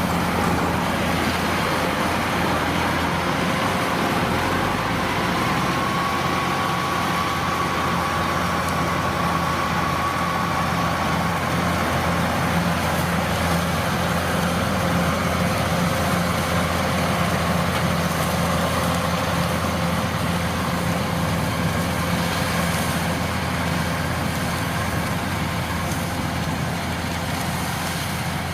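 Kubota DC-105X combine harvester running steadily: its diesel engine and threshing machinery give a constant low hum, with a faint thin whine for several seconds partway through.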